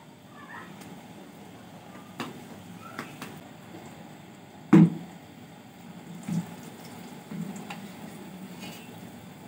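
Metal kitchenware clinking and knocking against an aluminium cooking pot: a few light clinks, then one sharp, louder knock about halfway through and two softer knocks after it, over a steady low hiss.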